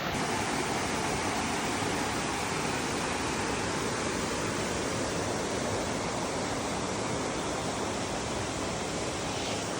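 Steady rush of flowing water, like a river or waterfall running over rocks.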